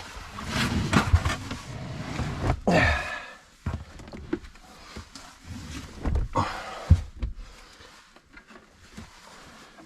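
Knocks, thuds and scraping of a heavy leisure battery being handled and shifted into its compartment, with a loud single knock near the seven-second mark.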